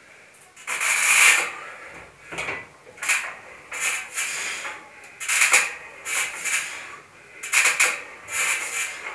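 A set of lat pulldowns on a cable machine: short rasping, rubbing noises about once a second, some in pairs, keeping time with the reps. The longest and loudest one comes about a second in.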